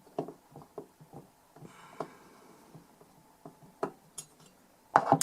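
Light clicks and taps of small metal parts as screws are worked out of a metal DI box's casing, with a louder clatter near the end.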